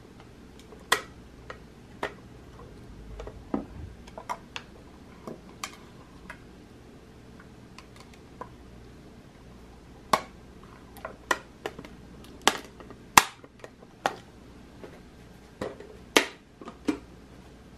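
Hard Lucite purse being handled and opened: its lid, brass clasp and hinged Lucite handle click and clack against the plastic body in sharp, irregular taps.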